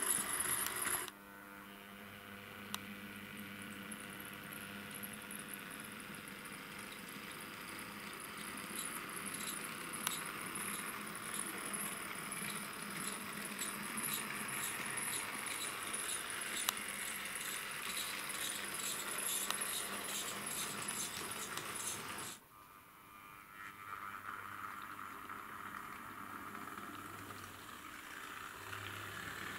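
H0-scale model trams running on a layout: small electric motors whirring, with wheels clicking and rattling over the track. The sound changes abruptly about a second in and again near the end.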